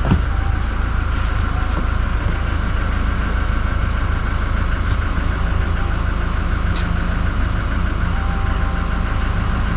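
Vehicle engine idling steadily, a low rumble with an even mechanical texture.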